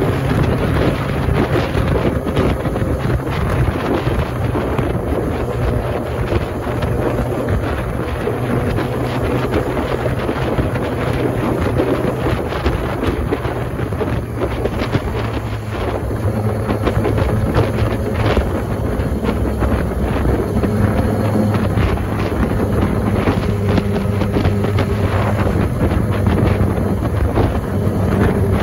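Yamaha YZF-R6's 600cc inline-four engine running at a steady cruising pace, under heavy wind noise buffeting the microphone.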